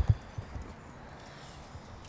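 Footsteps on asphalt: a few low thumps in the first half-second, then a faint steady outdoor background.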